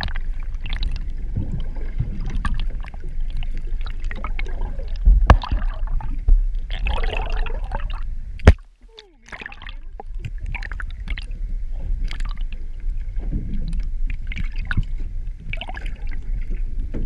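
Muffled underwater sound picked up by a GoPro in its waterproof housing: a steady low rumble of moving water with scattered clicks and knocks. Two sharp knocks stand out, about five seconds in and, loudest, about eight and a half seconds in, followed by a brief lull.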